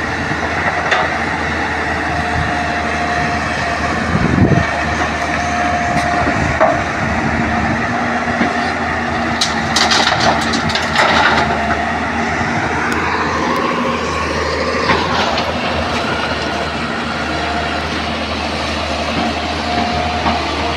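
Hyundai crawler excavator working: the diesel engine runs steadily, a hydraulic whine comes and goes, and the bucket and rocks clank and scrape. A cluster of sharp clanks comes about ten seconds in.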